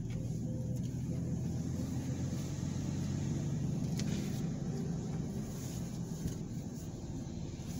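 Car engine and tyre noise heard from inside the cabin while driving slowly, a steady low rumble with a humming tone that eases off about six seconds in.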